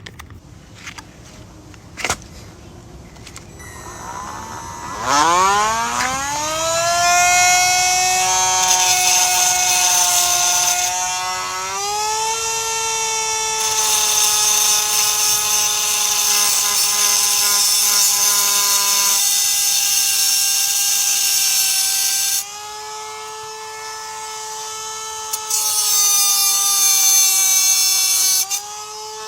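An electric power tool spins up about five seconds in and cuts the fuel level sender down to length, with a steady motor whine and a loud grinding hiss. Around two thirds of the way through it runs lighter for a few seconds, then cuts again, and it winds down at the very end.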